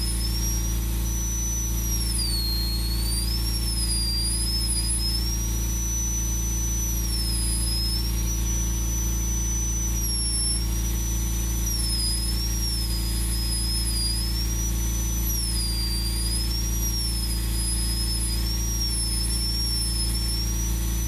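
High-speed rotary carving handpiece whining as its small burr cuts fish scales into wood. The high whine wavers up and down in pitch as it bites into each scale, over a steady low hum.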